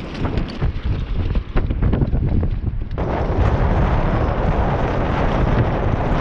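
Strong wind buffeting an action camera's microphone, a heavy low rumble with a few clicks. About three seconds in it changes abruptly to a steadier, fuller rush.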